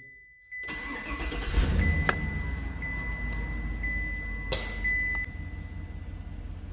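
Car engine starting about half a second in and running at a raised idle, then settling to a lower, steady idle near the end. The engine runs normally again after a manual relearn (key switched on several times, accelerator pedal pressed) done to cure a misfire. A couple of sharp clicks and a brief hiss come through while it runs.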